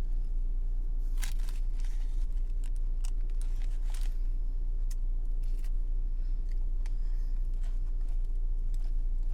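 Close-up chewing of a bite of sausage biscuit: scattered small wet mouth clicks and smacks, about one a second, over a steady low hum.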